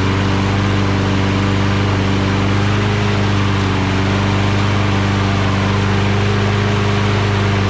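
Briggs & Stratton Quantum single-cylinder four-stroke engine on a Toro Recycler mower running steadily, its carburetor freshly cleaned.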